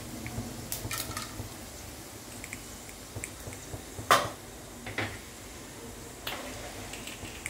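Tempering seeds (mustard seeds, cumin, urad and chana dal) sizzling faintly in hot oil in a nonstick kadai, with scattered sharp pops, the loudest about four seconds in.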